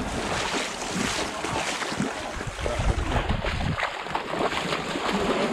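Sea surf washing on the shore with a low rumble of wind on the microphone, mixed with irregular scuffs and clicks close by.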